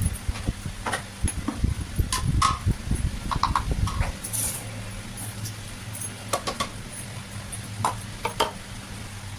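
Scattered sharp clicks and light knocks of kitchen handling, with low thumps in the first few seconds and a steady low hum setting in about four seconds in.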